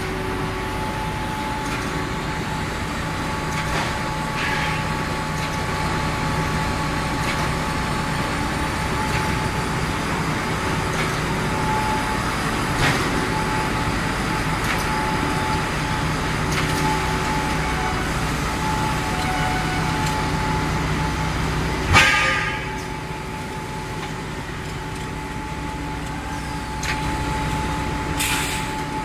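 Band-saw jumbo toilet paper roll cutting machine running, a steady mechanical hum with a held whine. There is a sharp knock about three-quarters of the way through, after which it runs a little quieter, and a short hiss near the end.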